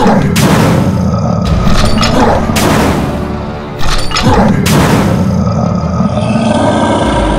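Background music with about four loud sound-effect hits, roughly a second apart, then music alone near the end.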